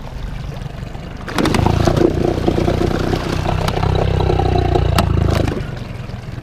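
Mercury outboard motor on an inflatable boat, running low at first, then revved for about four seconds from just over a second in before dropping back, its propeller churning up mud in shallow water. A few sharp clicks sound while it is revved.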